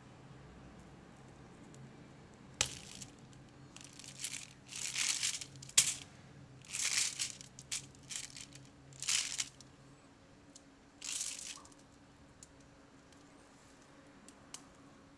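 Crinkling and crunching as hands squeeze and knead a ball of mashed chocolate, caramel, nuts and biscuit pieces, crumbs breaking and the sheet under it crackling. It comes in about seven short bursts through the middle stretch, then stops.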